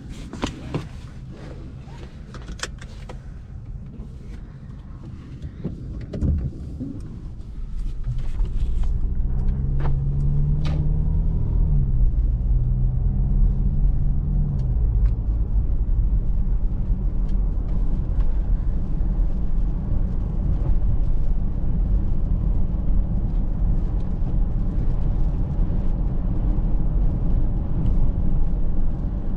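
Inside the cabin of a Mercedes-Benz GLC 300de: scattered clicks and knocks with a thump about six seconds in. From about eight seconds the car pulls away and settles into a steady low rumble of road and drivetrain noise, with a humming tone that rises between about nine and fifteen seconds in.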